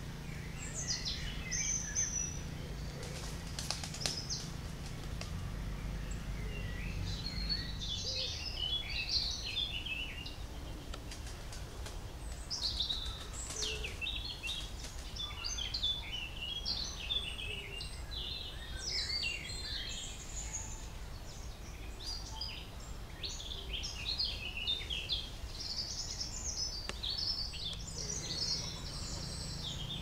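Songbirds calling and singing, many short overlapping chirps and song phrases throughout, over a low steady rumble.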